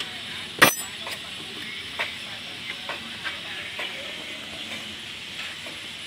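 Metal hand tools clicking and knocking against an engine while it is being worked on, with one sharp metallic clank about half a second in, over a steady background hiss.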